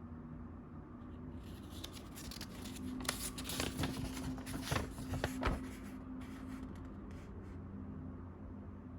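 Paper and packaging being handled: light rustling with a few soft clicks and taps, busiest around the middle, over a steady low hum.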